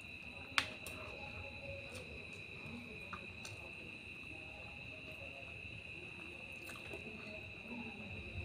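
A person eating rice and curry by hand: soft chewing and mouth noises, with one sharp click about half a second in and a few fainter ones, over a steady high-pitched background tone.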